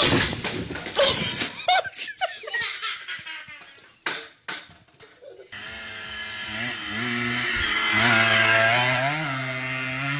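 Hearty laughter in rapid, choppy bursts for about four seconds, then after a short break a steady, low, droning tone with a slight rise in pitch, loudest a few seconds later.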